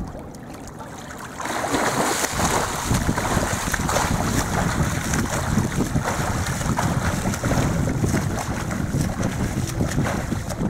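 A swimmer's front-crawl strokes splashing in the sea, a continuous churn of water that starts about a second and a half in.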